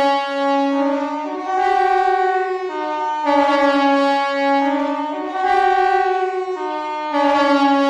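KTG-10 compressed-air siren sounding the general alarm. It is a loud, horn-like chord of several notes that steps up and down in pitch, and the pattern repeats about every four seconds.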